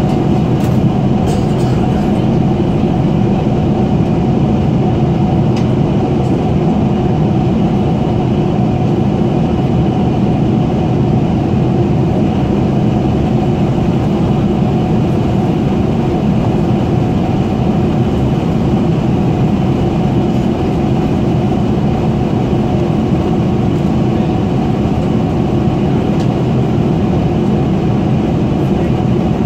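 Steady cabin drone of a Boeing 747-400ER in flight: its General Electric CF6 turbofans and the rush of air past the fuselage, heard from inside the cabin.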